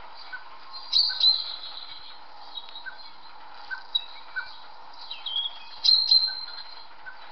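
Birds chirping in short, high twittering calls, loudest about a second in and again about six seconds in, over a faint steady hum.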